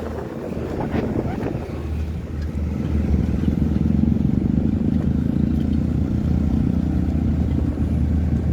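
An engine running steadily, growing louder about three seconds in and staying level after that.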